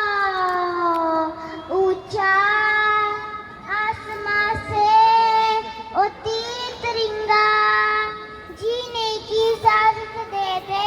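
A young girl singing a patriotic song unaccompanied, holding long drawn-out notes in phrases a second or two long; the first note slides down in pitch.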